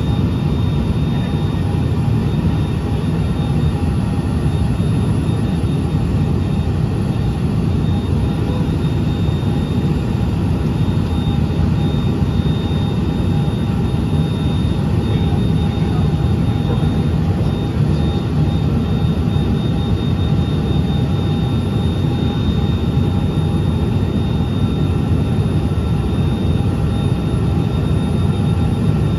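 Cabin noise of a Cessna Citation XLS business jet in flight: a steady, loud low rumble of airflow and its two rear-mounted Pratt & Whitney Canada PW545 turbofans, with a faint, steady high engine whine on top.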